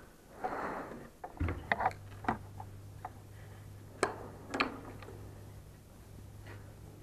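Steel spanner and screwdriver clinking and scraping against the shock absorber's top-plate nut: a brief scrape, then a handful of sharp metal clicks. A low steady hum sets in about a second and a half in.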